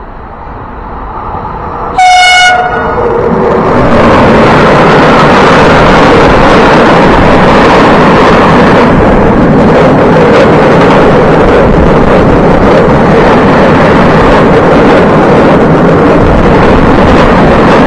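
Freight train sounding one short horn blast about two seconds in, then its car-carrier wagons passing close by: a loud, steady rolling rumble of wheels on rails.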